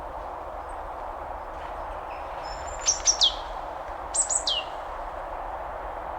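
Steady rushing of a waterfall, with a bird calling twice about halfway through: two quick groups of three sharp high notes, each group ending in a falling whistle.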